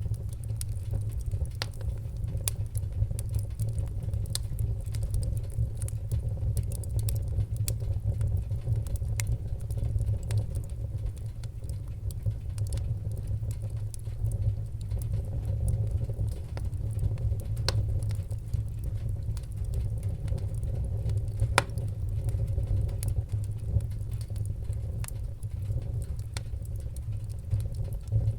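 Wood-burning fire crackling, with frequent sharp pops and snaps over a steady low rumble of the flames; one pop, a little past two-thirds of the way through, is louder than the rest.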